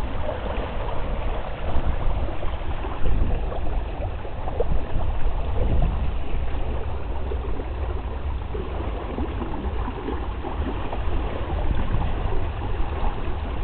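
Water rushing and splashing along the hull of a proa under way over shallow, choppy water, with a steady low rumble underneath.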